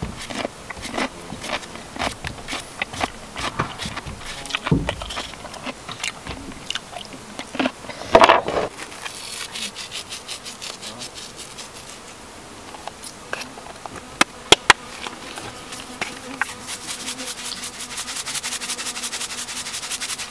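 An insect buzzing, among many scattered sharp clicks and ticks; a louder short burst comes about eight seconds in.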